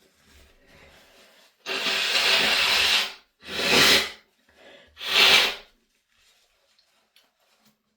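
A man sneezing loudly: a long hissing burst about two seconds in, then two shorter sneezes about a second and a half apart.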